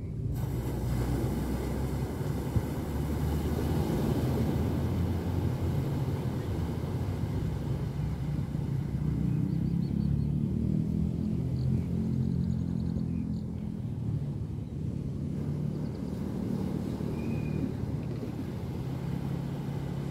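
Steady low rumble of beach ambience: small waves washing in, with wind buffeting the microphone.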